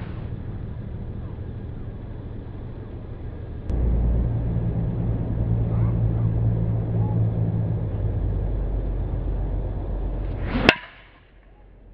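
A driver strikes a teed golf ball once, near the end, with a sharp crack: the loudest sound here. Before the strike a steady low rumble runs under it.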